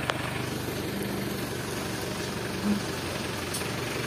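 Mini dump truck's engine idling steadily, with a sharp click just after the start and a short louder blip about two-thirds of the way through.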